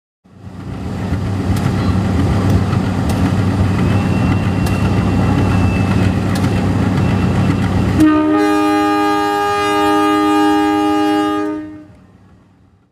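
CC201 diesel-electric locomotive running with a steady low engine drone and a few sharp clicks. About eight seconds in it sounds its multi-tone horn in one long blast of roughly three and a half seconds, and then the sound fades away.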